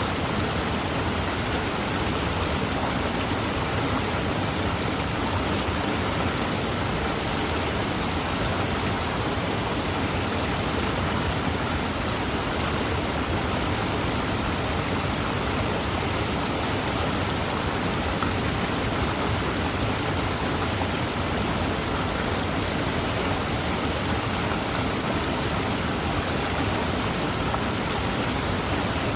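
Fast-moving river running, a steady, unbroken rush of water.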